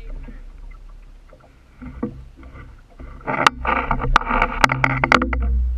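Water sloshing and splashing against the hull and paddle wheel of a boat, over a low rumble. About three seconds in comes a loud burst of splashing with a quick run of sharp slaps, which dies away near the end.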